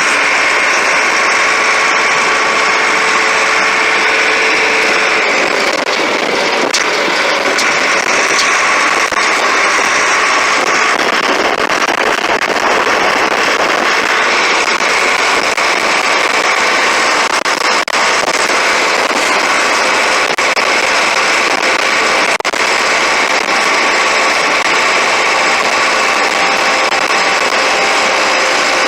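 Allis-Chalmers 715 backhoe's engine running steadily, its pitch shifting a few times.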